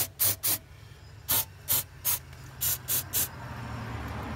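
Aerosol throttle body cleaner sprayed through a red extension straw in about nine short hissing bursts, in quick groups of two or three.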